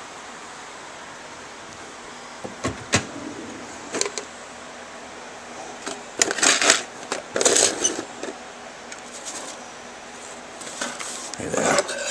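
Objects knocking and rattling in a drawer of cords, pliers and a pill bottle as a hand rummages through it. The clatter comes in short bursts that start a couple of seconds in and are loudest in the middle, over a steady background hum.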